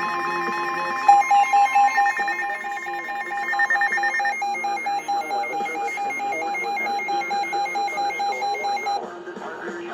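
Emergency Alert System electronic alert tones: several steady tones layered with a rapid high beeping that stops about four seconds in, and a repeating beep that cuts off about nine seconds in, when broadcast audio returns.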